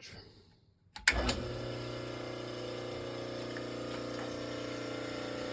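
Electric motor of a General 340 drill press switched on with the belt removed: a click about a second in, then the motor running steadily with a light hum. It is running quietly with little noise or vibration, so the motor alone is not the source of the drill press's rattle.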